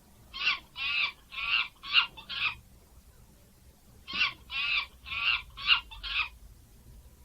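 Monkey calling: two runs of five quick, high-pitched calls, the second run starting about four seconds in.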